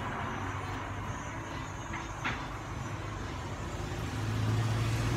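Steady background traffic hum, with a vehicle engine getting louder near the end. A couple of short faint scrapes about two seconds in, from a knife shaving a rubber bushing.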